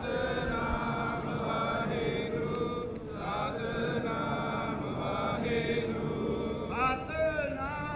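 Sikh devotional chanting by voices in a gathering: sung phrases rise in pitch and start again every two to three seconds, over a steady held note.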